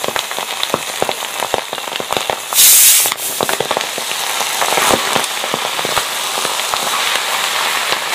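Wood ear fungus and climbing wattle leaves frying in oil in a steel pan while being stirred: a steady crackling sizzle with many sharp pops. About two and a half seconds in comes a sudden loud burst of hiss lasting about half a second.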